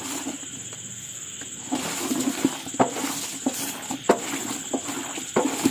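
A hand squeezing and rubbing boiled snail meat in a metal pot to work off the slime, making wet squelches and soft clicks that start a couple of seconds in. Under it runs a steady high-pitched insect trill.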